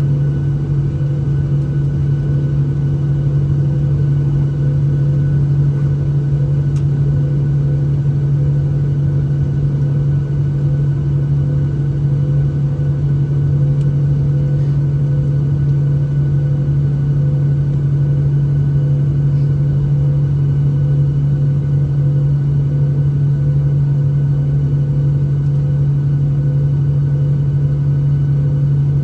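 Steady cabin drone of a jet airliner on the ground before takeoff, with the engines at idle: a strong low hum with a few faint steady higher tones over it.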